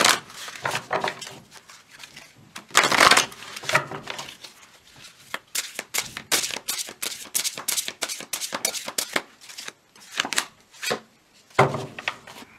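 A tarot deck being shuffled by hand. There are papery swishes of cards sliding at the start and again about three seconds in, then a fast run of crisp card flicks and taps for several seconds.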